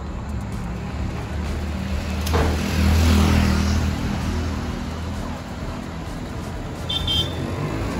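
Road traffic: a steady low engine rumble that swells as a vehicle passes about two to four seconds in, with a short high-pitched beep near the end.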